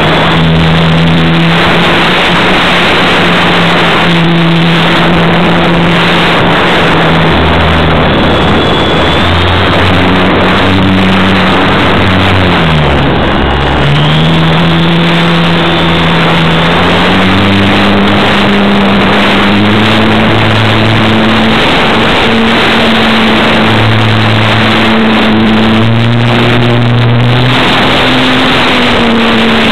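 Motor and propeller of a radio-controlled model aircraft, heard from a camera riding on the plane, running loud under a steady rush of noise. Its pitch dips sharply and comes back up about halfway through as the throttle is eased and reopened, then climbs slowly toward the end.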